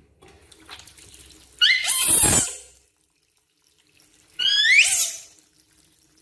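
Two short, shrill squeals from a baby monkey, one about two seconds in and another about three seconds later, each sliding in pitch.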